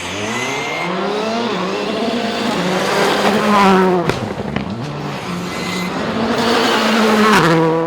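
World Rally cars' engines at full attack on a gravel stage, revs rising and falling sharply with gear changes and lifts, with sharp cracks about four seconds in.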